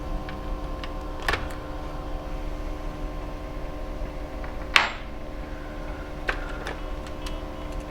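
Scattered small clicks and taps of a screwdriver and plastic laptop parts being handled while an internal laptop speaker is unscrewed and lifted out, with one sharper click about five seconds in. A steady background hum runs underneath.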